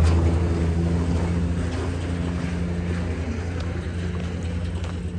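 An engine running with a steady low hum that slowly fades away.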